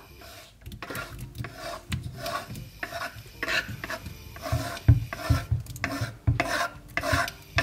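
Wooden spatula scraping chopped baby plum tomatoes and diced ham off a wooden cutting board into a frying pan of scrambled egg, in a run of irregular scrapes and knocks that grow stronger in the second half.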